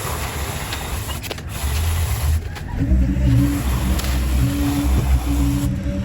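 An engine running with a steady low rumble; about three seconds in it gets louder and a steady hum comes in over it.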